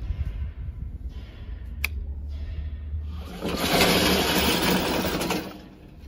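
Battery-powered brushless drive motors and gearboxes of a tracked remote-control lawn mower whirring as it drives on artificial turf, with the gasoline engine off. There is a sharp click just before two seconds in. The whirr grows much louder for about two seconds in the second half as the mower comes up close, then fades.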